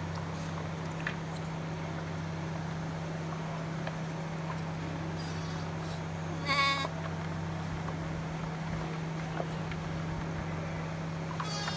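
A lamb bleats once, a short high call about two-thirds of the way through, with another bleat starting at the very end, over a steady low hum.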